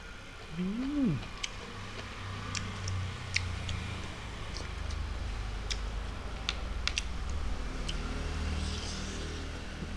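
Mouth sounds of a man eating rice and meat by hand: a short hummed "mmm" that rises and falls about a second in, then chewing with irregular sharp mouth clicks.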